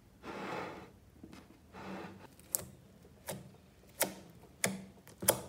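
A bowl of mixed slimes being squished and pressed by hand: a soft, squelchy swell near the start and again about two seconds in, then five sharp, sticky pops about two-thirds of a second apart as the fingers press into the slime and pull out.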